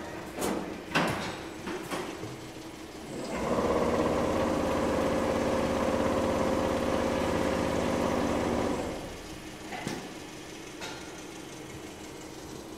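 Mammut Select VMK 250 CNC 601 multi-needle double lock chainstitch quilting machine running. About three seconds in, its loud, fast, even mechanical chatter of stitching starts and runs for about five and a half seconds, then drops back to a lower machine hum. A few sharp knocks come in the first second or so.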